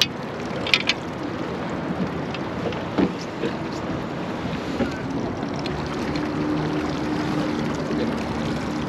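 Wind and water noise around a small aluminium fishing boat, with a few sharp clicks about a second in and a knock about three seconds in. From about six seconds in a low steady hum joins.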